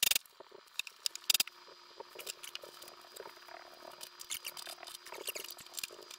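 Pneumatic rivet gun firing two short rattling bursts, the first right at the start and the second about a second later, setting aluminium rivets through the vertical stabilizer skin into the front spar. Light clicks and taps of handling the clecoed skin follow.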